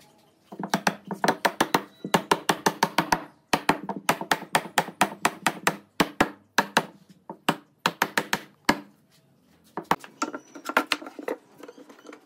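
A rubber mallet tapping rapidly on the mitered corner joints of a wooden table frame, knocking the glued joints tight. The taps come in quick runs of about five or six a second, with a short pause before a last, shorter run near the end.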